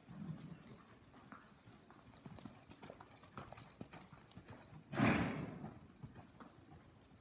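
A horse's hoofbeats, soft and irregular on the dirt footing of an indoor riding arena. About five seconds in, a sudden loud noisy burst stands out over them and fades within a second.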